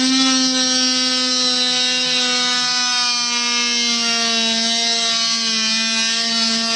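DeWalt DWE315 oscillating multi-tool running with a steady high-pitched buzz as its blade plunge-cuts into half-inch plywood; the pitch sags slightly midway as the blade takes the load.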